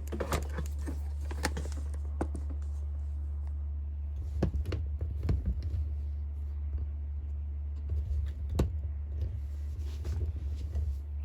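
Scattered light clicks and knocks as parts of a partly dismantled chainsaw are handled, over a steady low hum.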